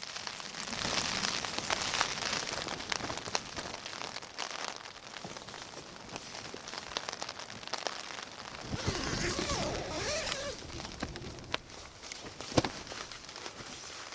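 Rain pattering on a tent in a storm, a dense patter with many sharp drop taps over a steady hiss, with a louder gust about nine seconds in.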